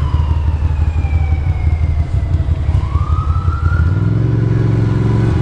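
Ducati Monster's L-twin engine running under way in traffic, its note changing about four seconds in, while a wailing siren slowly falls, rises again and starts to fall over it.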